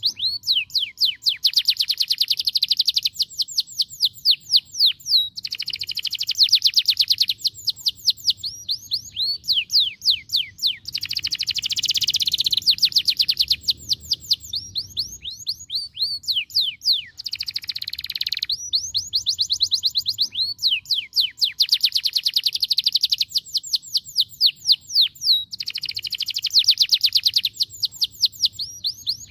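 Domestic canary singing continuously: long rolling tours of rapid, high, repeated chirping notes, switching to a new phrase every few seconds.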